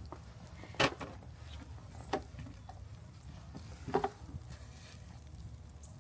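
Three short knocks about a second and a half apart, over a low steady rumble.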